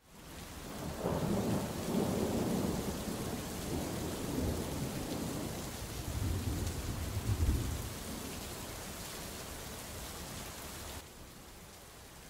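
Steady rain falling, with a long low roll of thunder rumbling through it. The thunder dies away after about eight seconds, and the rain drops quieter near the end.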